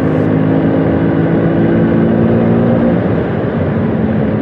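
A Bajaj Super 150 scooter's single-cylinder two-stroke engine running steadily as it is ridden along, its note shifting slightly about three seconds in.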